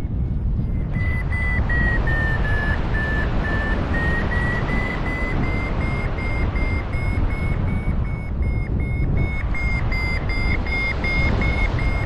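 Paragliding variometer climb tone: short high beeps repeating about two to three times a second, starting about a second in, their pitch dipping slightly and then rising. The beeping signals a climb of about 3 to 4 m/s in a thermal. Wind noise on the microphone runs underneath.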